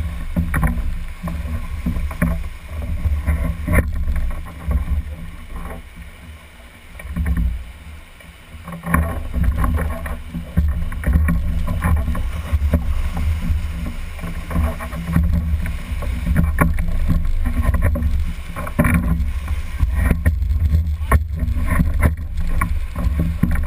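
Rushing whitewater of a rapid as a raft runs it, heard as a heavy, surging low rumble with a quieter stretch about a third of the way in, plus occasional sharp knocks.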